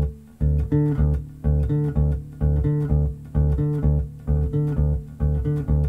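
Electric bass guitar playing a repeating octave figure on D, the low root and its octave alternating in a steady bouncing rhythm with short silences between notes.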